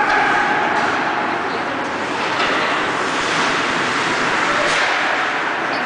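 Steady rushing noise in an indoor ice rink, with a few short scrapes of skate blades on the ice as the goalie moves in the crease.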